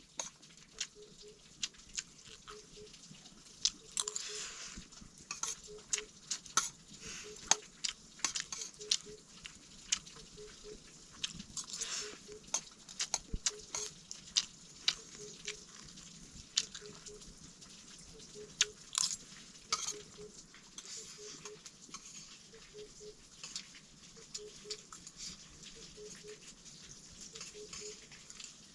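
Irregular clicks, taps and scrapes of a utensil against a pan or plate of fried rice, coming in small clusters. A faint double pip repeats about once a second underneath.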